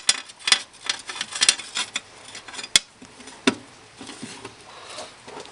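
Irregular light metallic clicks and clinks from hand work at a four-barrel carburetor's choke and throttle linkage, with no engine running. They are sharpest and most frequent in the first three seconds, with a last sharp click near the middle.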